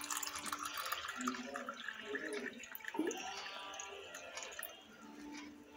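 Ozonated air from a Best Life ozone generator's tube bubbling and fizzing through a glass of water with chopped vegetables in it. It is a dense, uneven crackle of small bubbles.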